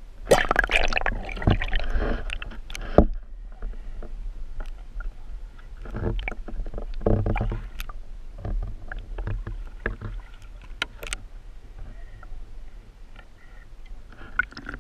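Water sloshing and swirling against an underwater camera, heard muffled through its housing, with irregular knocks and clicks over a steady low rumble. The noise is loudest in the first few seconds and again around the middle.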